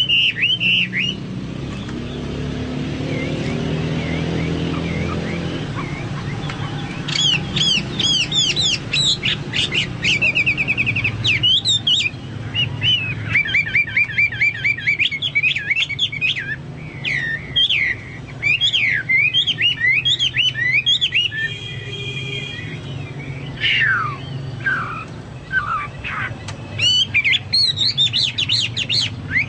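Hwamei (Chinese hwamei) singing, with its song likened to a cucak Papua or cucak mas. A few quick notes come at the start, then a low drone for several seconds. From about seven seconds in there is a loud, varied song of repeated downslurred whistles, rapid trills and chattering phrases.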